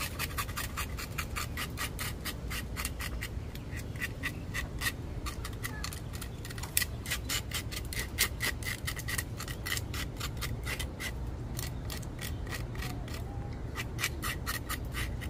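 A fish being scaled by hand: rapid scraping strokes against the scales, about four a second, pausing briefly a couple of times.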